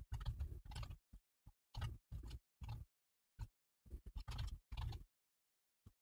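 Typing on a computer keyboard in short bursts of key clicks, with dead-silent gaps between them.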